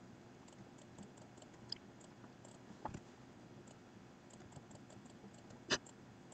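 A few scattered computer mouse and keyboard clicks: small ones early, a double click near the middle, and a sharper, louder click near the end.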